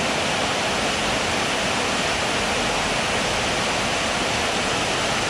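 Rain-swollen stream running fast, with white water spilling over a drop upstream: a steady, even rush of water.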